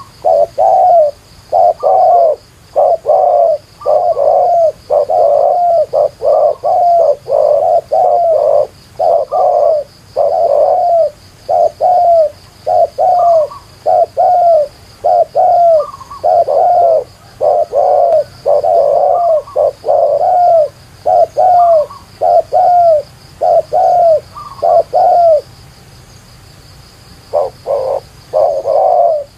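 Spotted doves cooing loudly: short curved coo notes repeated about one and a half times a second, with a pause of about two seconds near the end before the cooing resumes.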